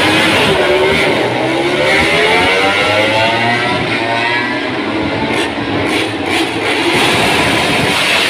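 MotoGP race bike engines revving hard as the bikes accelerate away from a practice start, the pitch climbing steadily over several seconds.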